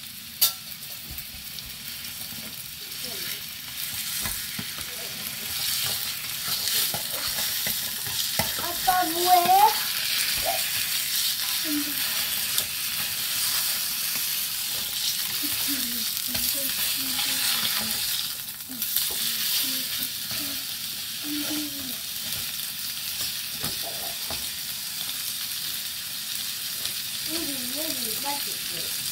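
Sirloin steak sizzling as it sears in a small metal camping pot, the sizzle growing louder after the first few seconds. A sharp click comes near the start, and a brief wavering high sound, the loudest moment, comes about nine seconds in.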